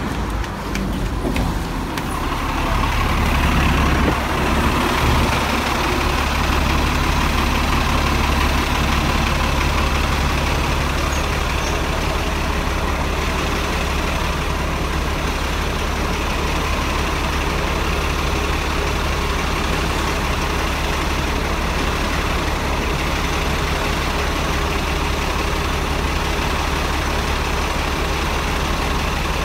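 A bus engine running with a steady low hum. It grows louder over the first few seconds, then holds steady.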